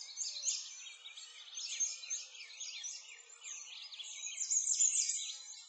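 Many birds chirping together in a dense chorus of quick, high chirps that overlap continuously, swelling a little near the end.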